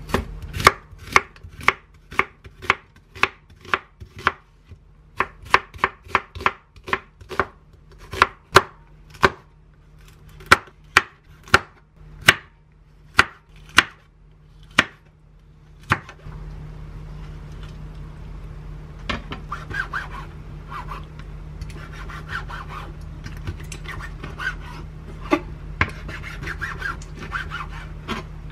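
Chef's knife chopping an onion and green chili on a wooden cutting board: sharp, crisp knocks about two a second. About sixteen seconds in, a steady low hum comes up, and the cuts turn softer and duller as the knife slices raw squid.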